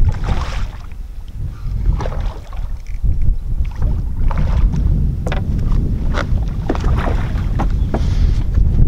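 Wind buffeting the microphone with a steady low rumble, over water slapping against a boat's hull, with short sharp splashes here and there, most of them in the second half.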